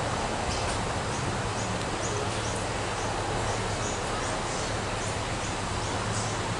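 Steady low hum of the diesel engine in a former steam tramway locomotive converted to diesel, running as it creeps along the two-foot-gauge track, with short high bird chirps scattered over it.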